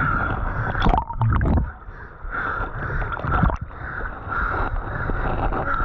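River water sloshing and splashing around a capsized kayak, with a steady low rumble over it and a few sharp knocks about a second in and again near the middle.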